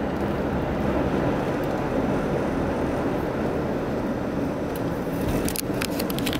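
Steady engine and road noise heard inside the cabin of a 1990 Volvo 240 DL cruising at about 40 mph, its 2.3-litre four-cylinder pulling evenly. A short run of quick clicks comes near the end.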